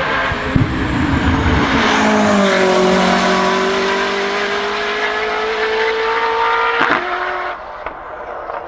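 Koenigsegg Jesko Absolut's twin-turbo 5.0 L V8 at full throttle, passing close and pulling away uphill. The engine note drops in pitch about two seconds in as the car goes by, then climbs steadily as it accelerates away. A sharp crack comes near the end, and then the sound falls away quickly.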